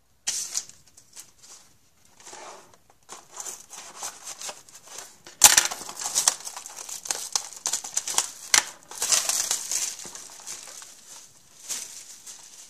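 Plastic shrink-wrap being cut and torn off a cardboard box of trading-card packs and crinkled in the hands, in irregular rustling bursts, with two sharp snaps about halfway through and a few seconds later.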